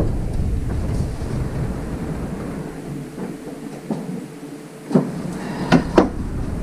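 Hands and tools working on the wiper linkage under a truck's cowl: a low rumble that drops away for about two seconds, then three sharp knocks about five to six seconds in.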